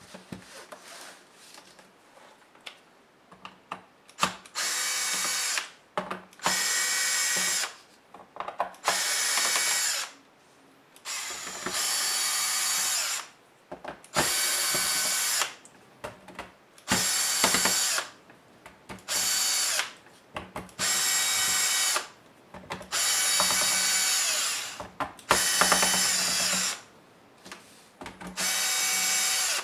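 Cordless electric screwdriver whirring in about eleven short runs of a second or two each, backing out the screws of a laptop's bottom case. Small clicks and taps come between the runs.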